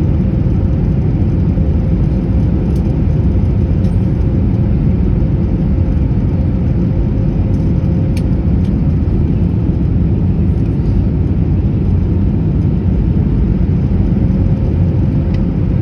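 Steady low rumble in the passenger cabin of an Airbus A321 taxiing after landing, with a faint steady hum and a few light ticks.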